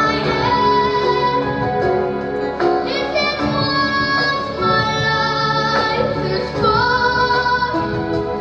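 Music: a slow pop ballad with a high female or child singing voice over instrumental backing.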